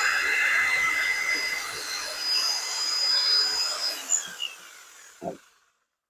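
Power drill running with a steady whine that fades and winds down about four to five seconds in, followed by a couple of faint knocks.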